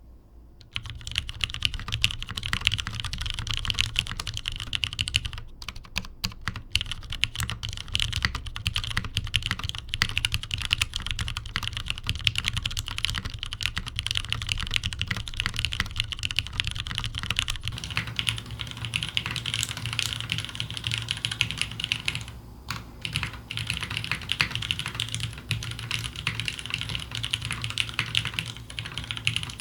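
Continuous typing on a Geonworks Glare top-mount aluminium-plate mechanical keyboard with lubed Cherry MX Nixie linear switches on heavy 150g springs and GMK keycaps: rapid, steady key clacks with a brief pause about three-quarters of the way through. A little past halfway the sound changes as the recording switches to the camera's microphone.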